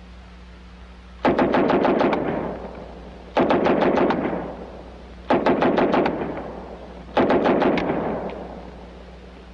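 WWII submachine guns (MP-40, Thompson and M3 grease gun) firing four short automatic bursts about two seconds apart. Each burst is roughly eight shots at about ten a second, with an echo trailing off after it.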